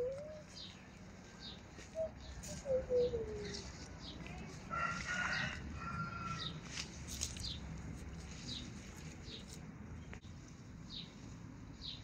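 Farmyard fowl calling: a few short, low calls in the first few seconds, some sliding down in pitch, and a brief higher call about five seconds in. Short high chirps repeat throughout.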